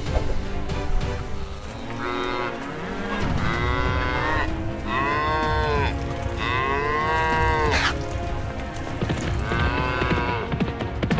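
Cattle mooing: about four long calls, each rising then falling in pitch, with a short sharp crack about eight seconds in.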